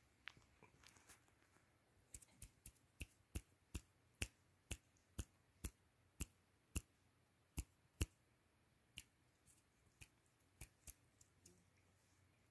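Oriental kitten grooming itself, its tongue licking fur and paw: a run of soft, sharp wet clicks about two a second, thinning out near the end.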